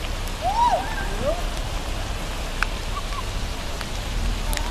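Heavy rain pouring down on a flooded street, a steady hiss picked up by a smartphone microphone. A brief shout rises and falls about half a second in.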